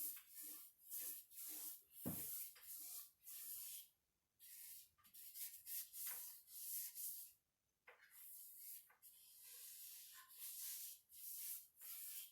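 Polyurethane being stroked onto the cedar chest's wood with an applicator: a run of short, rhythmic rubbing swishes, about two a second with brief pauses between passes, and a light knock about two seconds in.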